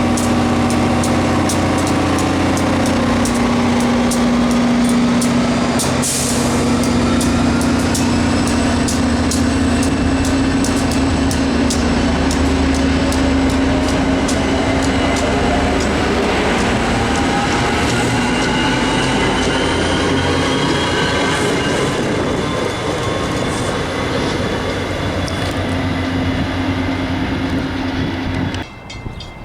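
Diesel-hauled train running through the station: a steady locomotive engine drone under a quick run of sharp clicks from wheels over rail joints. The sound cuts off abruptly near the end.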